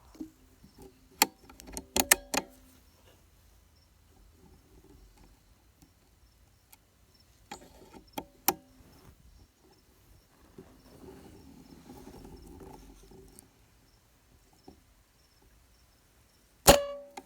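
Scattered sharp clicks and knocks: a quick cluster in the first few seconds, a few more midway, and a soft rustle after them. Near the end comes a single louder click with a short ring.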